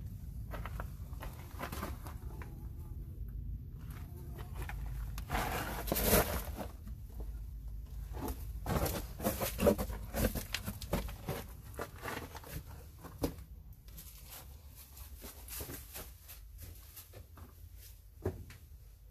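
Footsteps on loose rock rubble in a narrow mine tunnel: an irregular run of crunches, scrapes and clicks. The steps come thicker after about five seconds, over a steady low rumble.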